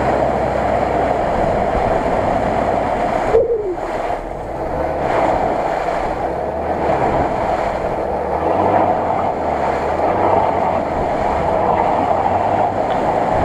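Lada Niva's engine running hard while the vehicle is stuck in a bog, its wheels churning through mud and water with a steady rushing noise. The revs drop briefly about three and a half seconds in, then build again.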